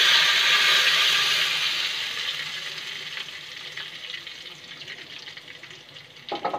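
Hot-oil tadka with whole dried red chillies sizzling as it is poured over a bowl of cooked spinach and potato curry. The sizzle is loudest at first and fades away over about five seconds.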